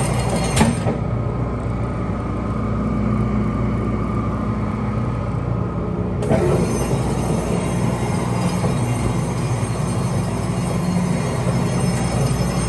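A 45-station 328-1 rotary tablet press running, a steady mechanical hum and clatter from its turning turret. From about one second to six seconds in the sound goes duller, with a sharp knock where that stretch begins and another where it ends.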